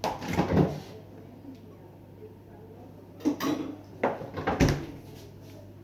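Kitchen utensils and dishes clattering: three short bursts of knocks and clinks, near the start and again around three and four seconds in.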